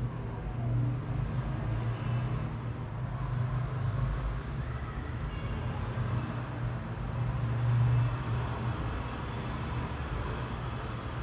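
Steady low hum and rumble of an aerial cable-car cabin running along its cable, heard from inside the cabin. It swells briefly about eight seconds in.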